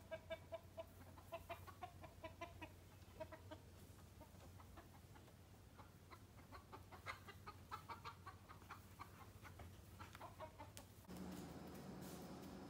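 Chickens clucking faintly in quick runs of short notes, in two spells with a lull between. About eleven seconds in this gives way abruptly to the steady low hum of an indoor room.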